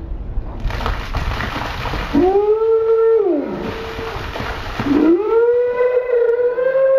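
A bucket of ice water pours and splashes over a woman's head, and she gives two long, held screams at the cold. The first scream falls off at its end; the second starts about five seconds in and runs on past the end.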